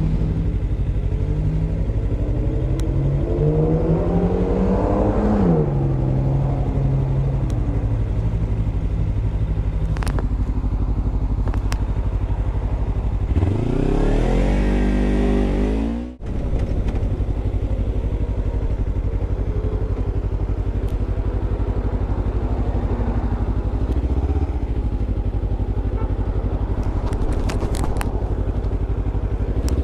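Motorcycle engine running while being ridden, the pitch rising as it accelerates about four seconds in and again from about 13 to 16 seconds, where it cuts off for an instant as if for a gear change before running steadily again.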